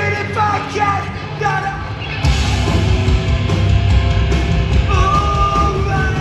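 A hardcore band playing live: a sustained melodic part carries the first two seconds, then the full band crashes in with heavy drums and bass about two seconds in and keeps playing loud.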